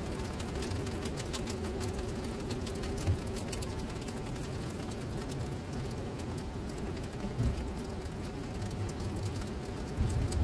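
Steady rain pattering on puddled paving, many small drop impacts on standing water, over a low steady drone. There are a couple of soft low thumps, one a few seconds in and one past the middle.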